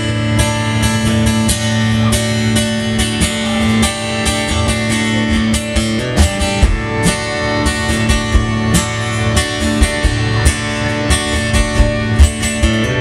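Live country band playing an instrumental intro: a strummed acoustic guitar with drums, before the vocals come in.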